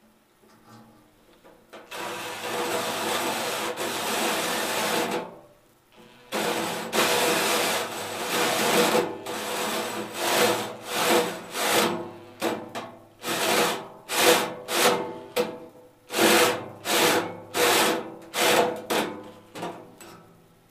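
Cordless drill cutting a large hole through a sheet-steel enclosure with a hole saw, giving a harsh grinding metal-cutting sound. It makes a steady run of about three seconds, pauses briefly, runs steadily again, then goes on in short stop-start bursts about once or twice a second until it stops near the end.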